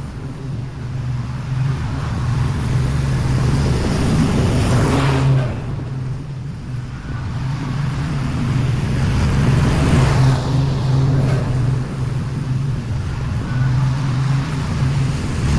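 Commercial mower's 24 hp Briggs & Stratton Vanguard V-twin running steadily at speed while cutting grass, swelling briefly about five and ten seconds in. With the new throttle cable fitted it holds its revs under load instead of bogging down.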